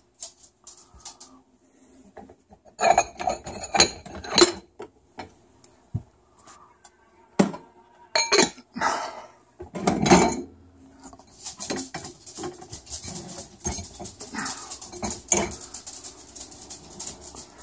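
Dishes clinking and clattering against the wire rack of a countertop dishwasher as they are lifted out and set down, in scattered clusters of sharp clinks with short pauses between.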